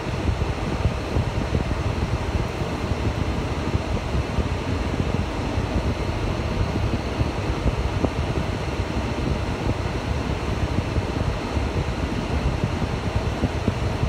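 Steady road and engine rumble heard from inside a moving car's cabin, with no distinct events.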